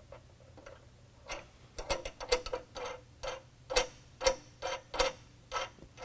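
Steel nuts being spun by hand onto bolts through a steel running-board bracket, giving a run of sharp metallic clicks, roughly two a second, starting about a second in.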